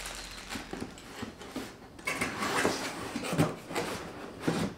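Unboxing handling: items and packaging being taken out and set down, with irregular light knocks and a stretch of rustling midway through.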